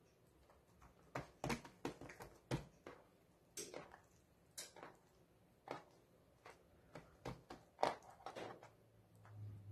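Faint, irregular soft taps and squishes of oiled msemen dough being folded and pressed by hand on an aluminium baking tray, with one louder tap near the end.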